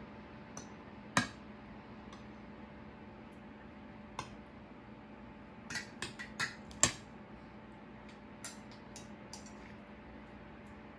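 Metal spoon and fork clinking and scraping against ceramic plates as food is served. There are scattered sharp clinks, with one loud one about a second in and a quick run of several about six to seven seconds in.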